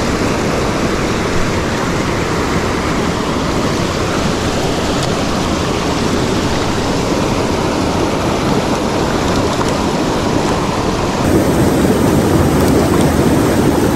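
Mountain stream rapids and a small cascade rushing over rocks: a loud, steady roar of white water, a little louder and fuller from about eleven seconds in.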